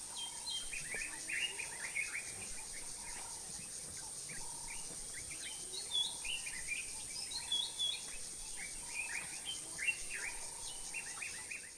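Several birds chirping in short repeated calls over a steady, high-pitched insect drone.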